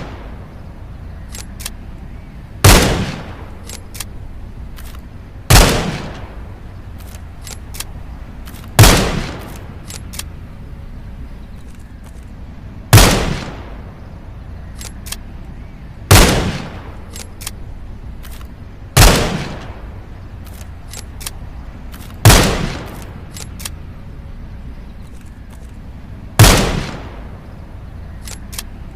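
.22 rifle firing single shots, eight in all, about every three seconds, each a sharp crack with a short fading tail. Faint clicks fall between the shots over a steady low hum.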